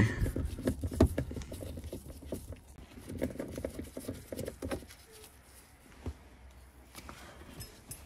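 Quick, uneven clicking and rattling as the shift knob is twisted off the manual gear lever of a 1976 Mercedes 240D by hand. It thins out after about five seconds.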